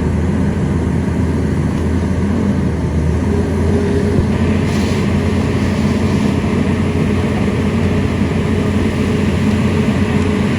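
Excavator's diesel engine running steadily with a deep, continuous rumble. A steady higher tone joins about three seconds in.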